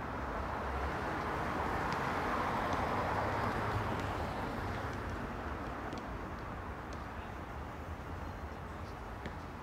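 A car driving past on the street, its rushing road noise swelling to a peak about three seconds in and then slowly fading, over a steady low traffic rumble.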